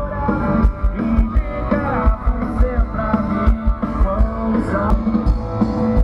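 Live rock band playing over a PA: a drum kit keeping a steady beat under guitar.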